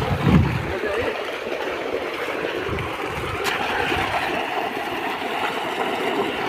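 Water splashing and churning as netted fish thrash in shallow water, with a low thump just after the start.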